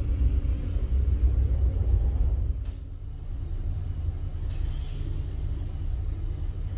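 Low, steady rumble of a Volvo B8RLE city bus's diesel drivetrain heard inside the passenger cabin. A single sharp click about two and a half seconds in, after which the rumble runs quieter.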